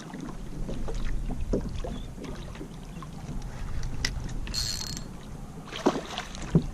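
Water sloshing and splashing around a kayak, with small knocks and clicks on the hull and a low steady rumble of wind on the microphone.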